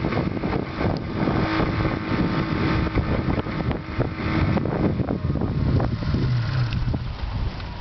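Snowmobile engine running as the machine is driven slowly over bare dirt and rocks, with irregular clattering knocks throughout.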